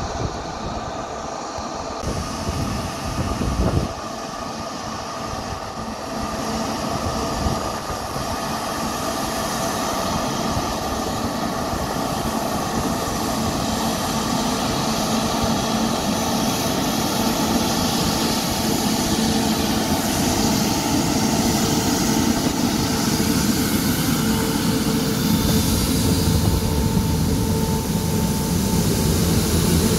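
Airbus A350-900's Rolls-Royce Trent XWB turbofan engines at taxi power: a steady jet whine and rumble that grows gradually louder as the airliner taxis closer.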